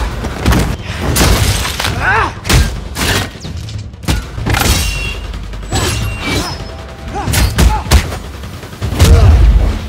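Film fight sound effects: a rapid series of blows and thuds with short grunts and shouts, over orchestral score, with a heavy boom near the end.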